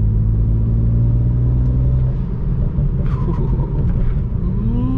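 BMW 335i's N54 twin-turbo inline-six heard from inside the cabin under way: a steady drone that eases off about two seconds in, then a rising whine near the end as it accelerates and the turbos spool.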